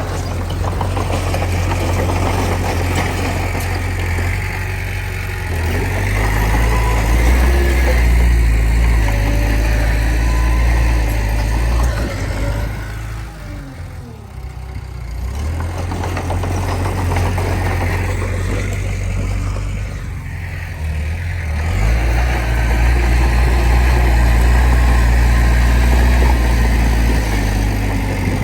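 Komatsu D20P crawler bulldozer's diesel engine working under load. The note swells and eases off twice, in two long surges with a lull between them.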